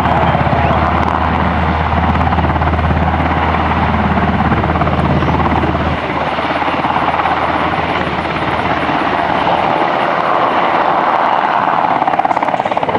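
UH-60 Black Hawk helicopter hovering with a Humvee on a sling load: loud, steady rotor and turbine noise with a rapid fine chop. The deep low rumble fades away from about halfway through as the helicopter turns.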